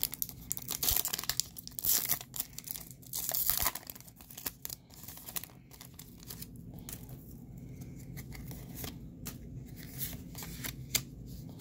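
Foil Pokémon booster pack wrapper being torn open by hand: sharp crackling tears over the first few seconds, then quieter crinkling and rustling as the cards are pulled out and handled.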